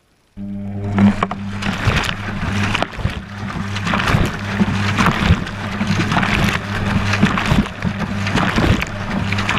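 Whirlpool washing machine's drum starting to turn about half a second in: the motor hums steadily while water sloshes and the camera housing clatters and knocks against the drum, heard from inside the drum.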